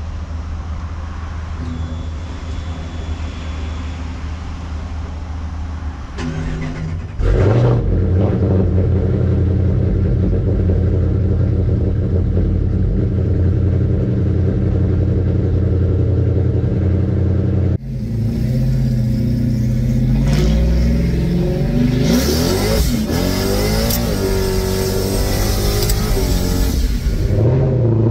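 Modified Ram race truck's V8 engine idling steadily, then getting suddenly louder about seven seconds in. Later it revs up and down through the gears while driving, with a loud rushing hiss over it near the end.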